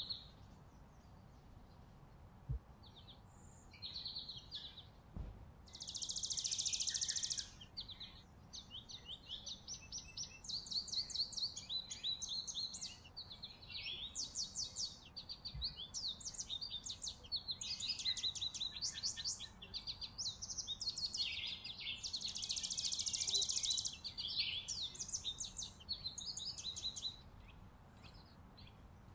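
Small songbirds calling over and over: runs of rapid high chips and trills, with two longer, denser trills of about a second and a half each, one about a quarter of the way in and one near three-quarters.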